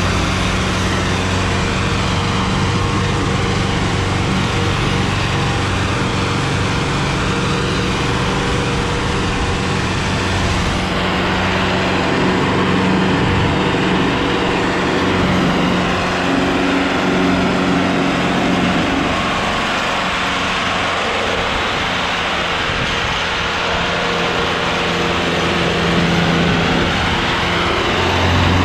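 Sonalika DI-750 III tractor's diesel engine running steadily under heavy load, pulling a trailer full of sand through soft sand.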